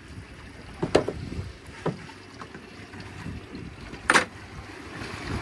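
Steady low wind-and-water background of a small fishing boat at sea, broken by three sharp knocks or clatters, about a second apart at first, with the loudest about four seconds in.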